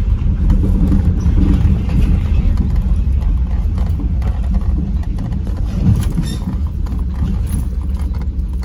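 Low, steady rumble of a car driving along a rough, dusty street, heard from inside the cabin: engine and tyre noise, easing off slightly toward the end.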